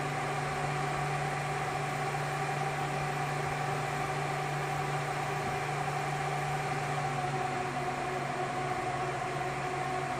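Dell PowerEdge 1950 server's eight cooling fans running at high speed during power-on startup: a steady, loud rush of air with a constant whine over it.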